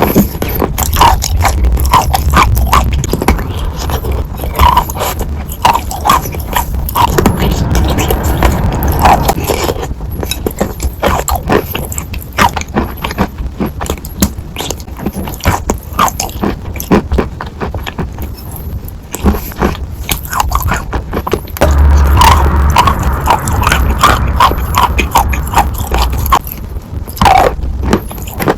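Sawn chalk being bitten and chewed close to the microphone: dense, crisp crunching and crackling with dull thuds from the jaw, in louder spells at the start and again about two-thirds through.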